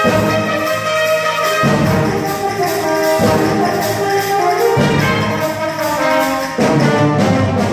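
School wind band playing a Spanish-style piece, with brass carrying sustained chords and low brass or percussion entries arriving about every second and a half.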